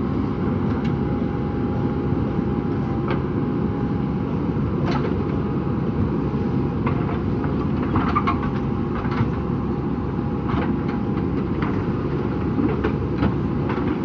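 JCB backhoe loader's diesel engine running steadily under load as the backhoe arm digs and swings, with scattered sharp knocks and clatter through it.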